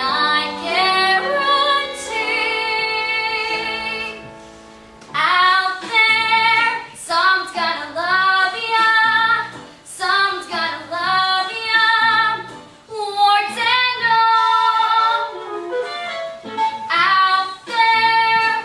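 A child singing a musical-theatre song with musical accompaniment, in sung phrases with held notes and a short pause about four seconds in.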